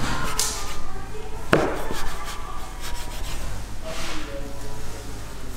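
Kitchen knife slicing through rolled dough and scraping and knocking on a floured wooden board, with one sharp knock about one and a half seconds in, over a steady low hum.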